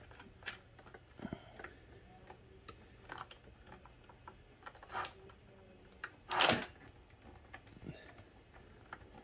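Light clicks and taps of wires with crimped spade terminals being handled and fitted into a power supply's screw terminal block. There is a louder scrape about six and a half seconds in.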